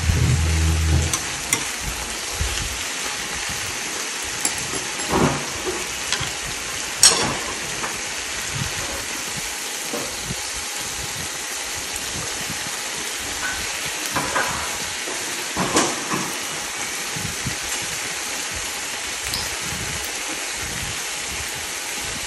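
Meat and an egg sizzling in a frying pan over a portable gas stove: a steady frying hiss, broken by a few sharp clinks of metal utensils against the pan.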